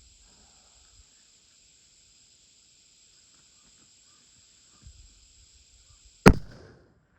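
A single hunting-rifle shot near the end: one sharp, loud crack with a short echo dying away over about half a second. It is the shot taken at a cow elk.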